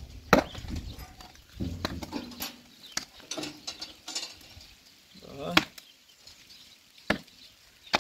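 A few sharp metal knocks and taps, spaced a second or more apart, from a rusty sheet-metal lid and box being handled and worked with a small hand tool.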